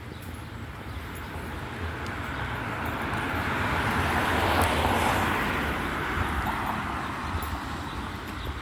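A car passing on a wet road, its tyre hiss swelling to a peak about halfway through and then fading away.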